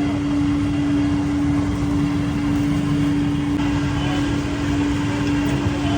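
A machine running steadily: a constant hum over a low rumble.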